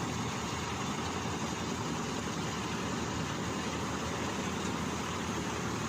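Rice combine harvester running steadily in a paddy field: a continuous, even engine and machinery noise.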